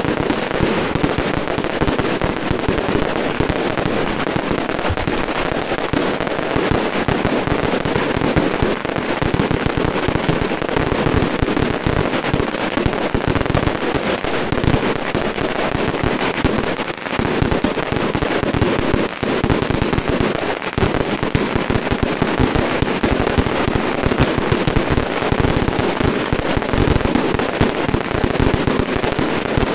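Strings of firecrackers going off in a dense, unbroken crackle of rapid bangs, with no let-up.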